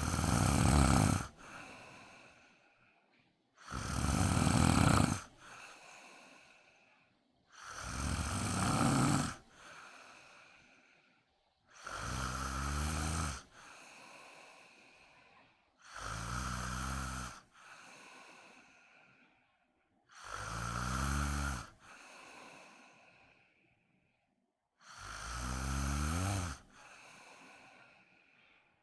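A sleeping person snoring loud, about once every four seconds: seven rattling snores in turn, each followed by a quieter, fading breath.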